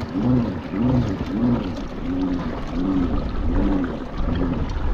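Pedal drive of a fishing kayak whirring under pedalling, its pitch rising and falling with each pedal stroke about two to three times a second, over water washing against the hull.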